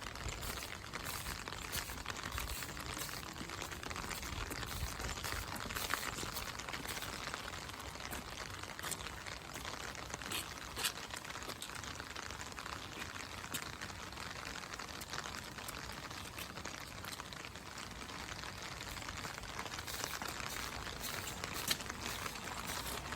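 Steady rain falling, an even hiss with occasional sharp ticks of individual drops.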